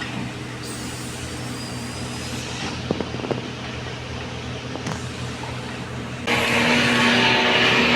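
JCB backhoe loader's diesel engine running steadily, with a couple of sharp knocks about three seconds in. About six seconds in the engine suddenly gets louder and its note stronger, as it revs up.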